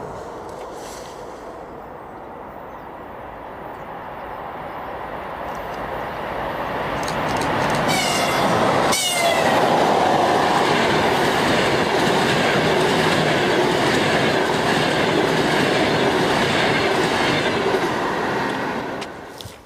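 EP20 electric locomotive hauling a double-deck passenger train approaches and passes at speed. Wheel and rail noise swells from a few seconds in and stays loud for about ten seconds, with short high tones falling in pitch about eight seconds in. The noise drops off sharply near the end.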